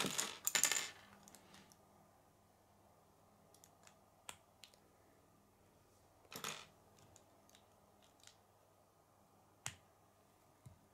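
K'nex plastic pieces handled and snapped together: a cluster of clicks and rattling at the start, then scattered single clicks, a short rattle about six and a half seconds in, and a sharp click near the end.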